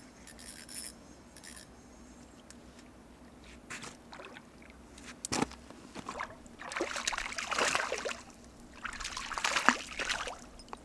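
Shallow water splashing at the river's edge as a freshly caught bass is handled in the water, in two spells of a second or more in the second half. A single sharp knock comes shortly before them.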